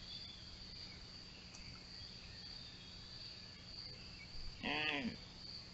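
Steady high-pitched trilling of night crickets. About four and a half seconds in, a short animal call rises and falls in pitch, rich in overtones, lasting about half a second.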